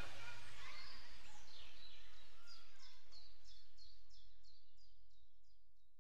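Faint background hum and hiss with a bird chirping in a quick, evenly spaced series of short high calls, about three or four a second, in the middle. All of it fades out near the end.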